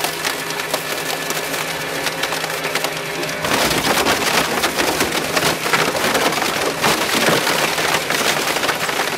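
Twin-shaft crushing blades of an EPS hot melting machine shredding expanded polystyrene foam: a dense crackling over the steady hum of the machine. The crackling grows louder about three and a half seconds in, as a large foam block goes into the blades.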